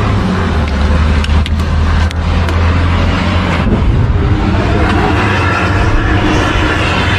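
Armored vehicle's engine running close by, a steady low drone with a few sharp clicks over it. After about three and a half seconds the drone thins and a rushing hiss takes over as the vehicle pulls away.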